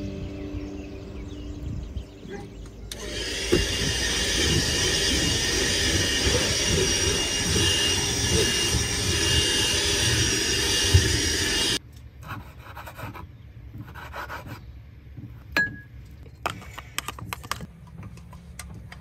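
A small handheld vacuum cleaner runs steadily with a hiss and a thin whine for about nine seconds, then stops suddenly. Light clinks and clatter of cups and dishes at a sink follow.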